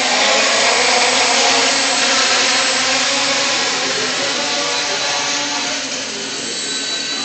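Quadcopter's four electric motors and propellers whirring steadily as it lifts off and hovers, a dense buzz of several tones that waver slightly as the motors adjust.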